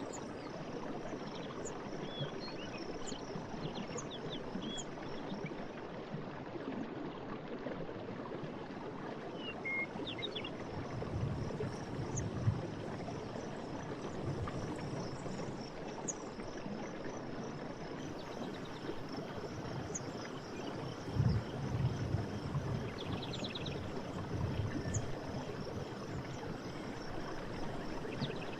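Forest stream of running water, a steady rush, with scattered short bird chirps and calls over it. The water surges in a few louder low gurgles, about 11 seconds in and again around 21 seconds in.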